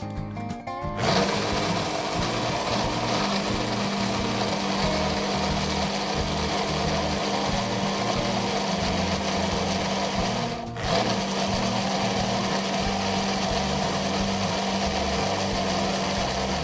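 Electric kitchen blender running steadily, blending a drink, with a brief pause about two-thirds of the way through before it starts again.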